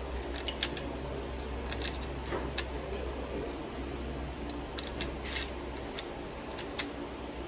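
Sharp metallic clicks of .357/.38 cartridges being thumbed through the loading gate into the magazine tube of a Rossi lever-action rifle. A handful of separate clicks come over several seconds, over a steady low hum.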